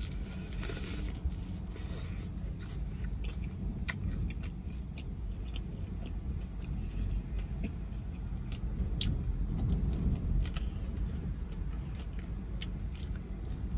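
Close-up biting and chewing of a crispy fried chicken wing, with many short crackles of the fried skin, over a steady low rumble inside a car.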